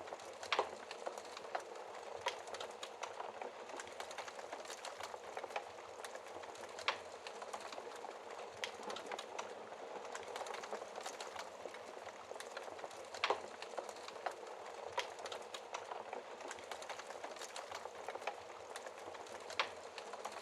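Wood fire crackling in a fireplace: a steady soft hiss of burning with irregular small snaps and a few sharper pops.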